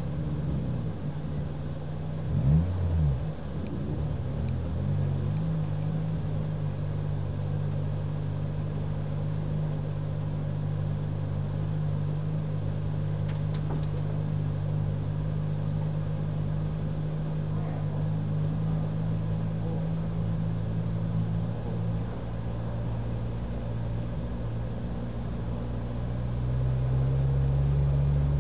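Car engine heard from inside the cabin, running steadily while the car rolls along at low speed; this is plausibly a Toyota Vios race car. A short rev rises and falls about two and a half seconds in, and the engine gets louder near the end.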